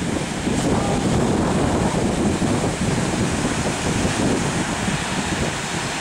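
Wind buffeting the microphone over surf washing onto a rocky shore, a steady rushing noise.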